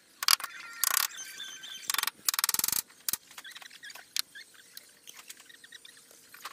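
A few sharp knocks, then a rapid rattle lasting about half a second, from hands-on carpentry at the side planks of a wooden boat hull. After that only faint scattered ticks.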